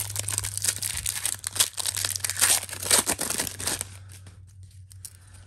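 Foil wrapper of a trading-card pack being torn open and crinkled in the hands: a dense crackling rustle that dies away about four seconds in, leaving only a few faint ticks.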